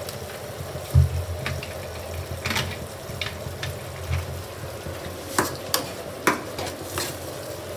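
Thin khichdi cooking in a steel kadhai on a gas flame with a steady sizzle, while a steel ladle stirs it and clinks against the pan about half a dozen times.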